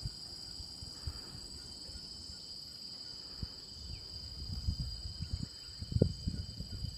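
Steady high-pitched insect chorus from the rainforest, several even tones droning without a break. From about halfway in, irregular low rumbling thumps on the microphone grow louder.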